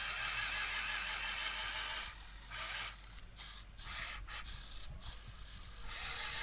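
Small electric motors and gearboxes of two RC toy cars whining as they strain against each other in a tug-of-war on sand. The whine runs steadily for about two seconds, then cuts in and out in short bursts.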